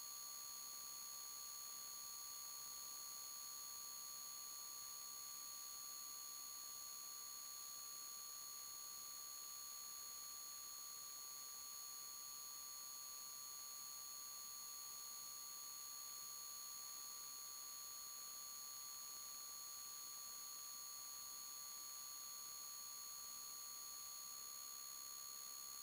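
Faint steady hiss with a constant high-pitched electronic whine made of several fixed tones, unchanging throughout. This is electrical noise in the recording rather than the motorcycle: no engine or wind noise comes through.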